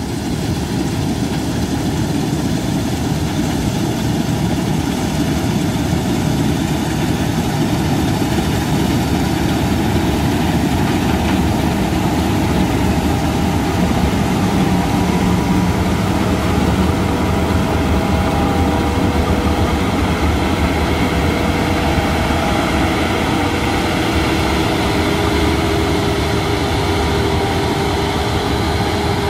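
Claas Avero 240 combine harvester working under load while harvesting oats: its engine and threshing gear make a steady, heavy drone with a faint whine on top.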